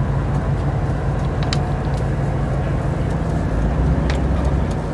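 Boat engine running steadily with a low drone, and a couple of faint ticks.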